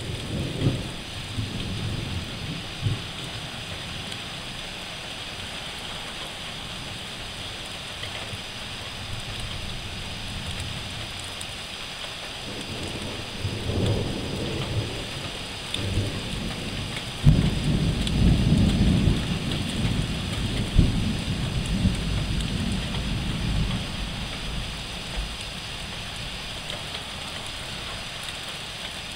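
Thunderstorm: rain falls steadily throughout, while thunder rumbles low several times. There is a short roll at the start and another about halfway. The loudest begins suddenly about seventeen seconds in and rumbles on for several seconds before fading.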